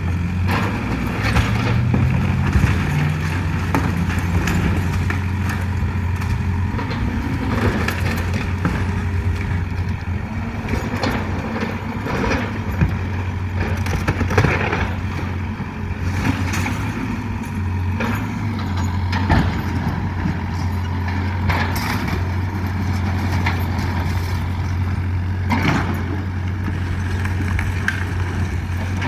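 Cat 305 mini excavator's diesel engine running steadily, its pitch rising briefly a second or two in. Scattered sharp cracks and knocks come from the house being torn down.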